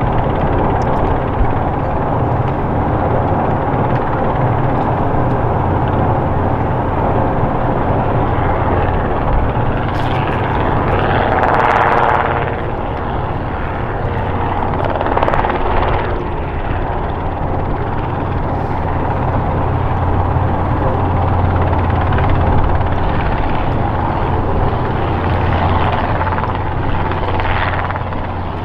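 Robinson R22 Beta II light helicopter hovering and air-taxiing low over the ground, its four-cylinder Lycoming piston engine and two-blade main rotor running steadily.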